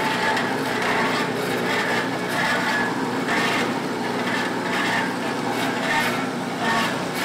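Marvel metal-cutting band saw cutting through a metal bar: a steady sawing noise from the blade in the cut.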